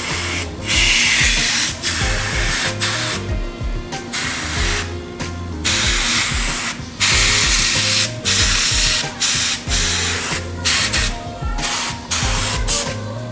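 Compressed air hissing from an air blow gun fed by a small oilless air compressor, let off in a run of blasts with short breaks between them, as dust is blown out of a mining rig.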